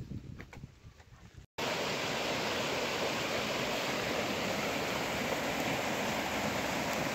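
Steady rush of flowing water from a stream, starting abruptly at an edit cut about a second and a half in; before the cut only faint short sounds.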